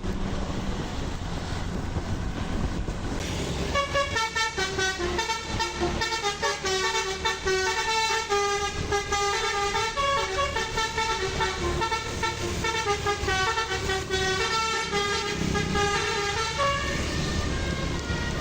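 Bus 'telolet basuri' musical air horn playing a tune of quick stepped notes. It starts about four seconds in over the low rumble of the vehicle and stops shortly before the end.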